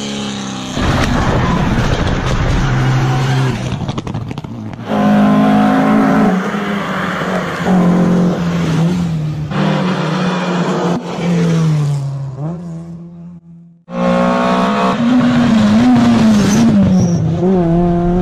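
Rally car engines at full throttle on a closed stage, revving hard and stepping up and down in pitch through quick gear changes. The sound comes in several separate passes that start abruptly, with a brief near-silent gap about thirteen seconds in.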